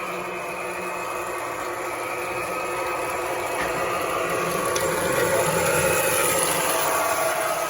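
Toy electric train running on its track: a steady motor whine and wheel rumble that grows gradually louder and peaks around five to six seconds in as it passes closer.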